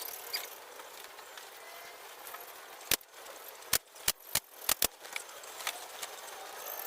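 Six short, sharp knocks in quick, uneven succession from about three seconds in, over a steady background hiss: work on a wooden sofa frame.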